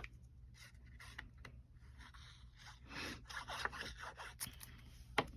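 Paper being handled on a desk: short rubbing and scraping strokes of a cut piece of designer paper and cardstock, with a few light taps near the end.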